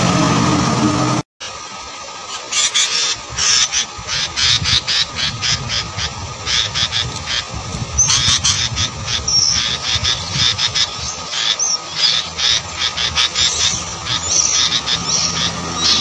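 Sooty-headed bulbul nestlings begging: many short, high chirps repeated in quick succession, busier from about halfway, when a chick gapes for food. For about the first second a steady low mechanical hum runs, then cuts off abruptly.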